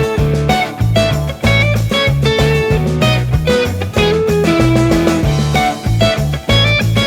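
Background music: an upbeat guitar-driven rock track with bass and drums keeping a steady beat.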